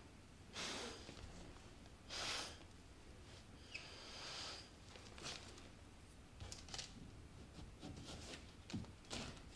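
Breath blown through a paper straw onto wet acrylic paint, spreading it into a bloom: three airy blows about every second and a half, then shorter, fainter puffs.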